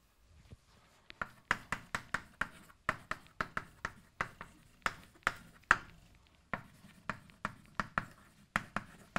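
Chalk writing on a blackboard: a rapid, irregular run of sharp taps and short scratches as letters are formed, starting about a second in.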